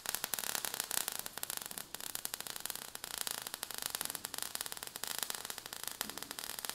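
Faint crackling static: rapid, irregular small clicks over a low hiss.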